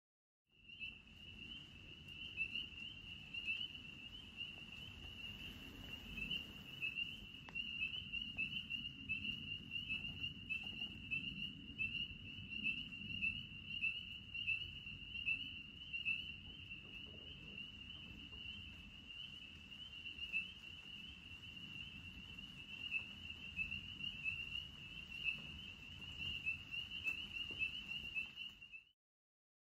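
A steady chorus of calling creatures: one continuous high trill, pulsing quickly, over a low rumble.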